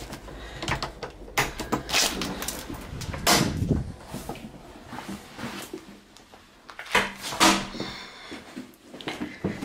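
Irregular knocks, clunks and rustling from a handheld camera being carried through a house, mixed with a door being opened and shut.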